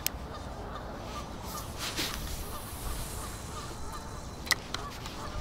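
Geese honking in short repeated calls over wind rumbling on the microphone, with two sharp clicks, the louder one near the end.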